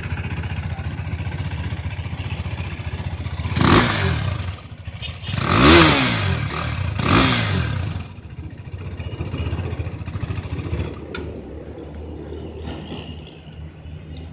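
2017 KTM RC 390's single-cylinder engine idling, then blipped three times about four seconds in, each rev rising and falling quickly and the middle one loudest, before settling back to a steady idle.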